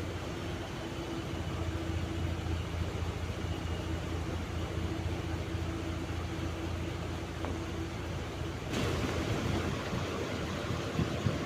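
Cosmos 56-inch (140 cm) industrial ceiling fan running with a steady low motor hum and air noise. A broader rushing hiss comes in suddenly about nine seconds in.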